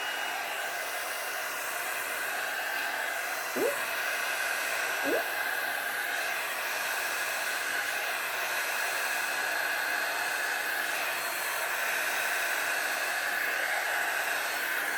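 Hair dryer with a roller brush attachment running steadily on its low setting, a continuous whoosh of air with a faint steady whine.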